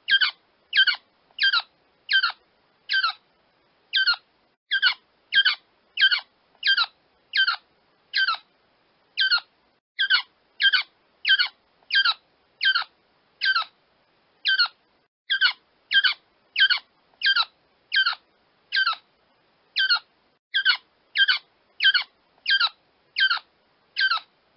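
Quail crowing: a long series of short, harsh calls, each dropping in pitch, repeated one to two times a second with an occasional brief pause.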